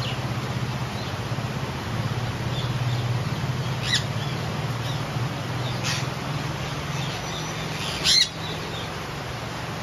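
Indian ringneck parakeets beating their wings in the rain, giving short sharp squawks: one about four seconds in, another about six seconds in, and the loudest near the end. Steady rain hiss underneath.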